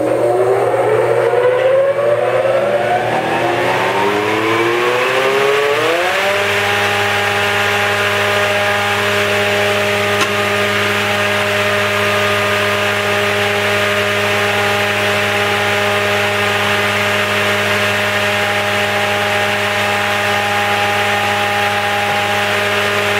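Felder Format 4 spindle moulder (shaper) spinning its 220 mm Profil 45 carbide-knife raised-panel cutter head up from a standstill. The whine rises in pitch for about six seconds as the head comes up to 6,000 rpm, then holds steady as it runs free without cutting.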